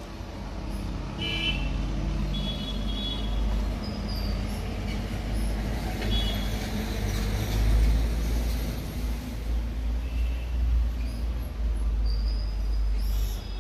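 Steady low rumble of road traffic, with a few short high chirps or toots scattered through it.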